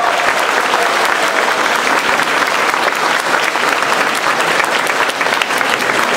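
Audience applauding steadily: a dense, even patter of many hands clapping at the end of a children's ribbon dance.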